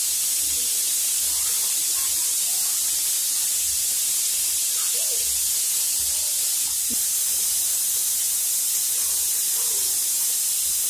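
Vijayalakshmi pressure cooker on a gas burner hissing steadily as steam escapes at its weight valve: the cooker is up to pressure, between whistles.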